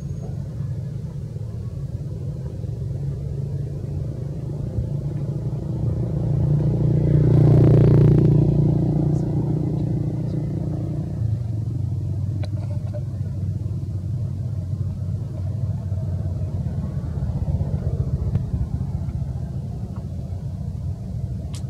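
Steady low engine rumble of passing motor traffic, swelling as one vehicle goes by about eight seconds in, then settling back.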